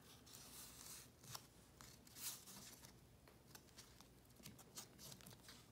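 Faint rustling and light scraping of a thin cardboard spine form being laid along a book's spine and pressed down by hand, with a few soft ticks.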